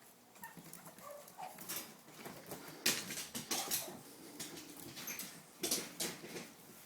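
Six-week-old Boston Terrier puppies giving faint short whimpers and squeaks, with scuffling and a few sharp knocks as they move about.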